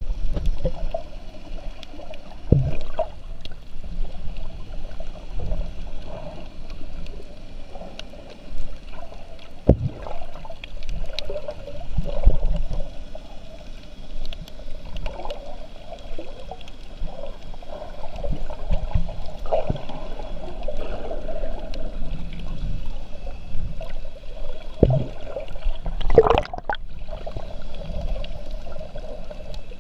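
Underwater sound picked up by a camera in its waterproof housing: muffled sloshing and gurgling of water with a low rumble and scattered knocks, the sharpest one near the end.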